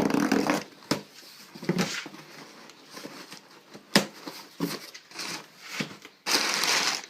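A parcel being handled and opened: scattered knocks and clicks of packaging, then a short loud tearing noise about six seconds in.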